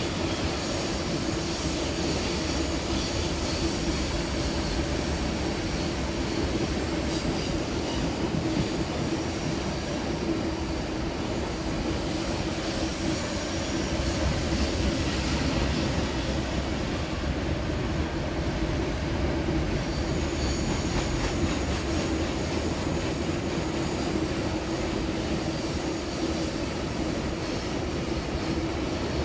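Rail grinding train running past, a steady, unbroken mechanical noise with a constant hum.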